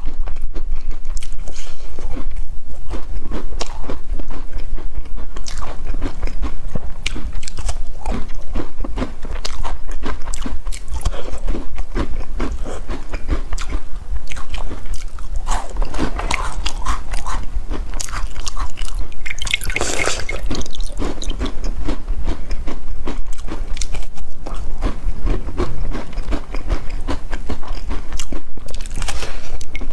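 Close-miked biting, crunching and chewing of crisp black-sesame toasted bread slices dipped in milk: a steady run of crackly crunches, with a couple of louder bites past the middle.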